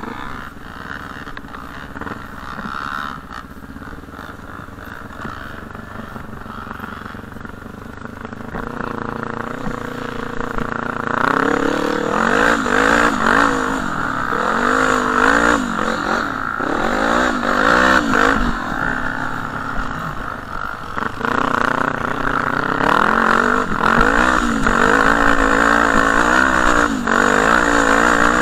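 Off-road vehicle engine being ridden hard over sand tracks, revving up and down again and again; fainter at first, it gets louder about a third of the way in. Wind rumble on the helmet-mounted microphone runs underneath.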